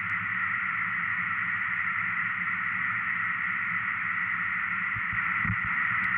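Circuit-bent office telephone putting out a steady, harsh static-like hiss from its rewired circuitry, with no clear pitch and strongest in the middle-upper range. A few faint low knocks come near the end.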